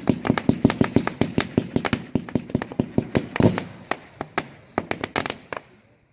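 Fireworks going off in a rapid run of sharp cracks and bangs, several a second, that thins out in the second half and dies away near the end.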